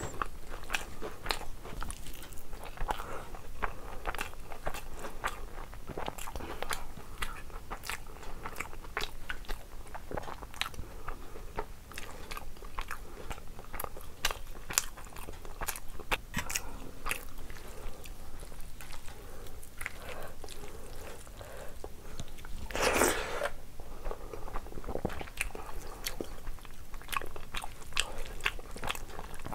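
Close-miked mouth sounds of a person eating rice and curry by hand: a steady run of wet chewing and small crunching clicks. One louder burst of noise comes about three-quarters of the way through.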